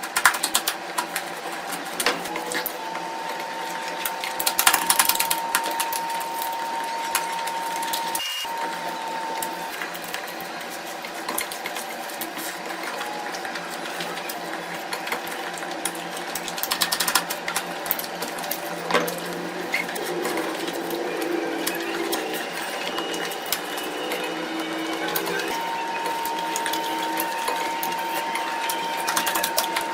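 Close-miked eating sounds: wet chewing, lip smacking and frequent sharp mouth clicks while eating curry. A steady high tone sounds through them twice, for several seconds each time.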